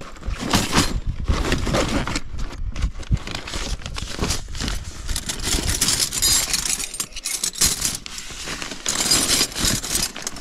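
Irregular rattling, clattering and scraping as kitchen gear and food are handled and set out.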